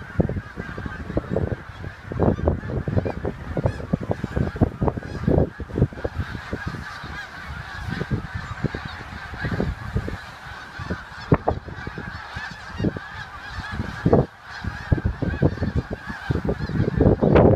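A large flock of snow geese calling together, a dense unbroken chorus of honks, over irregular low rumbles. The calling swells louder near the end.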